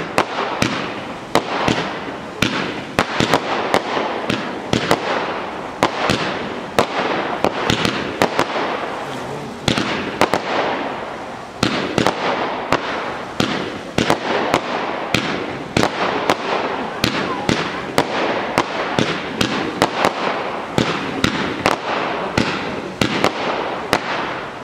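Aerial fireworks going off in a rapid, continuous barrage: sharp launch and burst bangs about two or three a second over a steady hiss and crackle from rising red comets.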